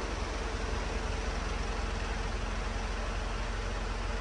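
Hino Dutro Euro 4 truck's diesel engine idling with a steady low rumble, under the even rush of the Denso air-conditioning blower running.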